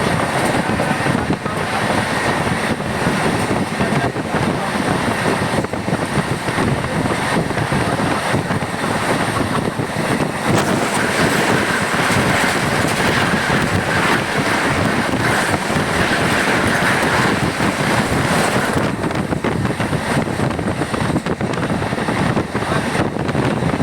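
Moving train running along the track: a steady rumble and rattle of wheels on rails, with wind rushing over the microphone. A higher hiss swells for several seconds in the middle.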